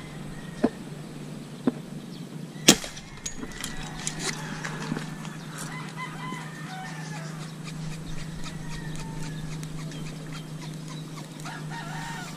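A rooster crowing, with a steady low hum underneath. A few sharp clicks come in the first three seconds, the loudest about three seconds in.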